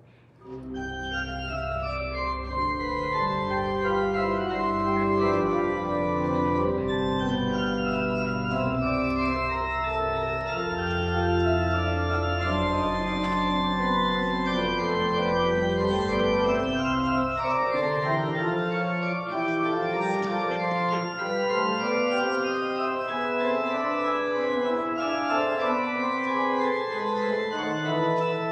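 Church organ beginning about half a second in, playing slow sustained chords over a deep pedal bass. The bass drops out a little past halfway while the upper parts play on.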